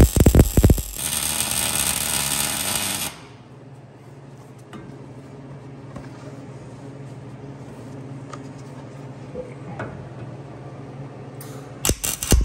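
Wire-feed welder tacking a steel trailer-hitch receiver to a truck frame. The arc crackles and sizzles for about three seconds and then stops. A low steady hum carries through the pause, and a second weld starts crackling near the end.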